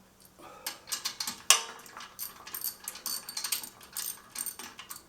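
Steel sockets clinking and clicking irregularly as a different-size socket is picked out of a socket set and fitted to the wrench, with one sharper click about a second and a half in.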